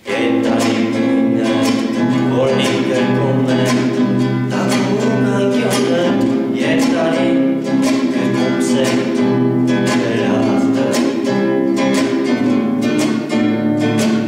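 A man singing a song with his own strummed nylon-string classical guitar accompaniment, the strums coming in a quick steady rhythm.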